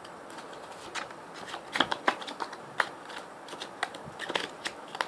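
Plastic playing cards being handled and packed back into their hard plastic box: a string of irregular clicks and taps.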